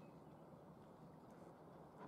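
Near silence: faint, steady outdoor background noise with no distinct sound.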